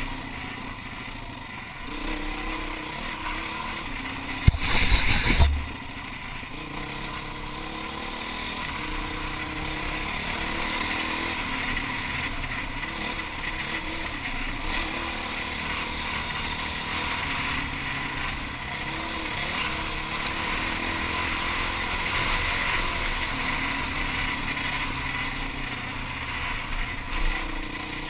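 Enduro motorcycle engine running steadily while riding a gravel track, with wind noise on the microphone. About four to five seconds in, a sudden loud burst lasts about a second.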